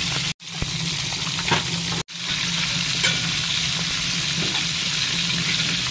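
Milkfish and milkfish intestines frying in hot oil in a wok: a steady sizzle, with a couple of sharp clicks about a second and a half and three seconds in. The sound cuts out twice for an instant early on.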